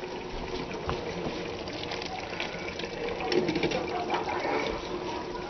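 Food simmering in pans on a stove: a steady watery hiss with many small pops, and a few light clinks about three seconds in as a hand lifts the wok's metal lid.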